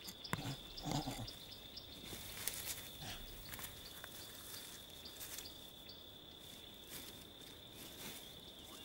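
Chimpanzee cracking nuts with a hammer stone: a few scattered knocks of stone on nut and anvil, with faint grunting, over a steady high insect drone.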